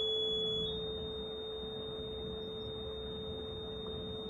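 Two electronic sine-wave tones sounding together: a steady low tone and a high whistle that climbs in small steps, then holds steady under a second in. These are the signal tones whose frequencies draw the circle-over-square pattern on the oscilloscope.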